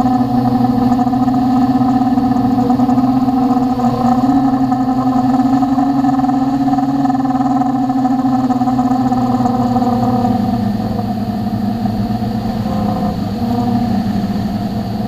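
Quadcopter motors and propellers humming steadily, heard from a camera mounted on the drone, the pitch dipping and wavering a little past the middle as the throttle changes.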